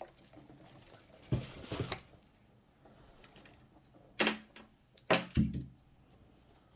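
Small product containers and packaging being handled and set down on a table: a handful of short knocks and clatters, the loudest pair near the end.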